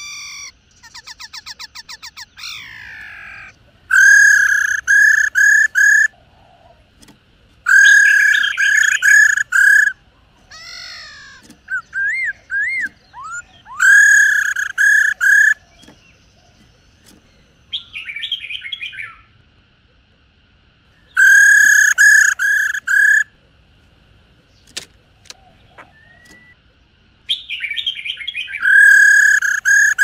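Black-throated laughingthrushes singing: loud phrases of four or five ringing repeated notes every few seconds, with whistled rising and falling notes, a fast rattling trill near the start and harsher chattering notes in between.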